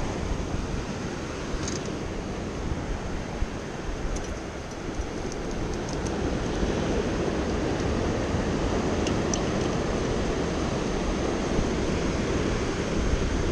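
Ocean surf washing and breaking over lava rocks in a steady rush, with wind rumbling on the microphone. A few faint clicks come through now and then.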